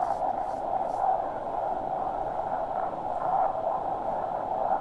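Steady road and engine noise of a vehicle being driven, an even hiss with no distinct events.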